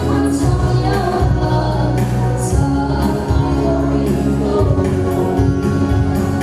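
A girl singing a gospel song into a microphone over instrumental accompaniment with a steady bass line and beat.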